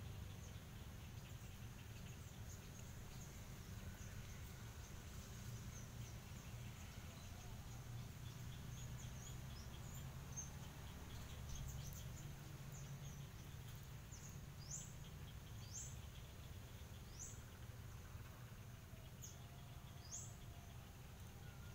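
Garden ambience: a steady low background rumble with birds chirping. In the second half a bird gives a short, high call that slides downward, about five times.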